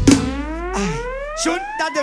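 A synthesizer riser effect: one siren-like tone climbing steadily in pitch after the music breaks off on a hit, over a fading bass note, with a few short percussive hits and vocal snippets on top, marking a transition in the music.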